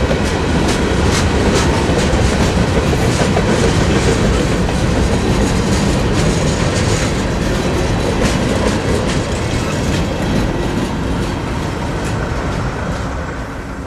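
Freight train's open-top gondola cars rolling past on steel wheels, a steady heavy rumble with sharp wheel clicks. The sound fades away near the end as the last car goes by.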